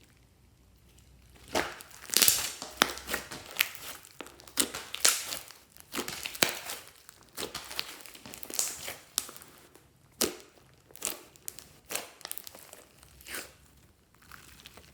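Slime being squeezed and worked by hand, giving a run of irregular crackling pops and crinkles that starts about a second and a half in and dies away near the end.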